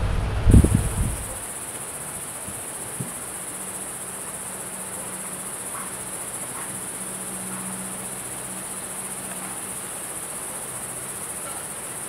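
Insects in a steady, high-pitched drone, with a short thump in the first second.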